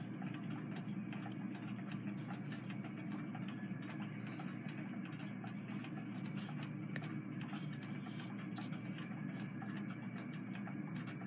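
A faint steady hum with light, irregular ticks and clicks over it.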